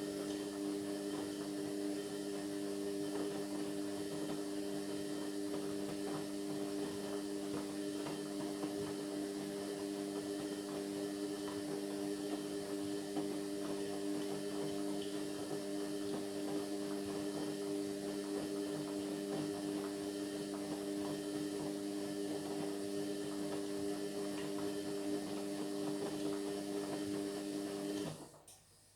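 Indesit MyTime washing machine running with a steady, even hum partway through a Cotton 60 cycle; the hum cuts off suddenly near the end.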